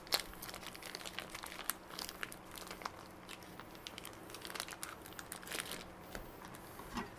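Plastic wrapping of a ground beef chub crinkling as it is peeled back and the meat is squeezed out: soft, irregular crackles and small ticks.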